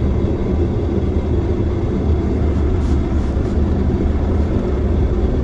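A ute driving, with a steady low rumble of engine and tyres.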